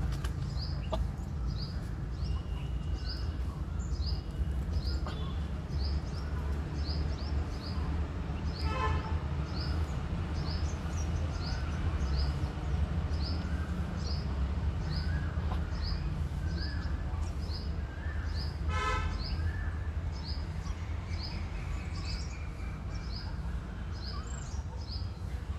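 A small bird chirping over and over, a short high chirp about twice a second, over a steady low rumble. Two brief honk-like calls break in, about a third of the way through and again about three-quarters through.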